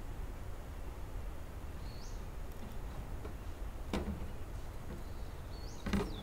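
Quiet outdoor ambience with a steady low rumble and two short rising bird chirps, about two seconds in and near the end. Two light knocks come about four and six seconds in, the second the louder.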